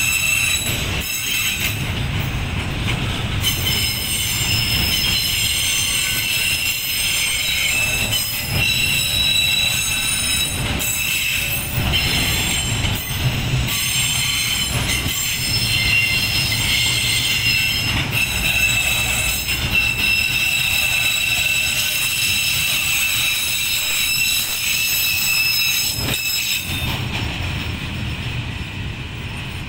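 Container wagons of a freight train rolling past, the rumble of the wheels on the rails carrying a steady high-pitched wheel squeal. The squeal drops away and the sound eases near the end.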